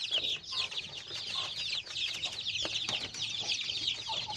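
A flock of young cockerels peeping together: many short, high, falling peeps overlapping in a continuous chorus, with a few faint knocks.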